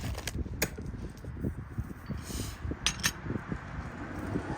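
Light metallic clinks of small metal parts or tools being handled: a few sharp clinks near the start and two more about three seconds in.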